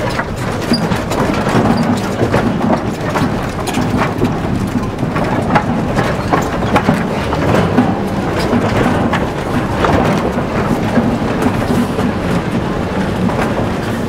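Moving truck heard from inside its open wooden cargo bed: a steady rumble with constant irregular knocking and rattling of the boards and loose load.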